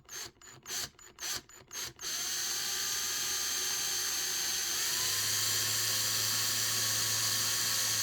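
Small electric drill boring a peg hole into a plastic action figure's foot. A few short blips of the trigger come first, then a steady high whine, its pitch stepping up slightly about halfway through.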